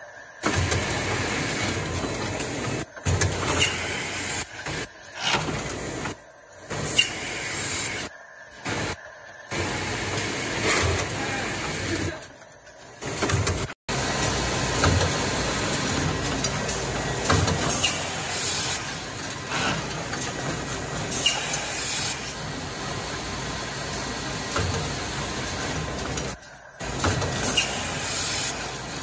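Automatic cartoning and collating line running: a steady mechanical noise of conveyors and pneumatic grippers, with hisses of air. The sound cuts out suddenly and briefly several times.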